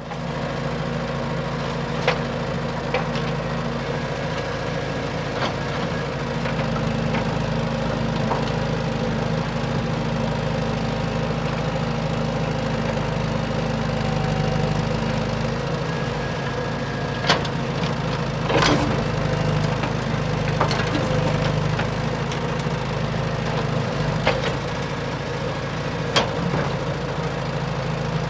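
RC construction machinery running: a steady engine-like drone with a few sharp knocks and clicks scattered through it, two of them close together a little past the middle.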